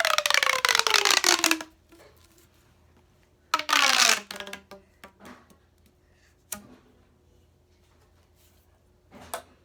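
Plastic pop tube fidget toy stretched and worked twice, each time a loud rasping zip whose pitch falls as it goes. A couple of light clicks follow later.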